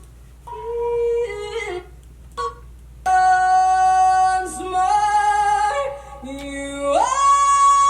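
A woman singing solo with long held notes and small vocal runs, stepping up to a high sustained note near the end.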